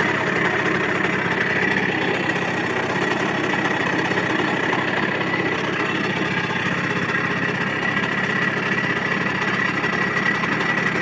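Simson Schwalbe KR51/1 scooter's rebuilt two-stroke single-cylinder engine, fitted with a 60 cc cylinder, idling steadily just after being kick-started.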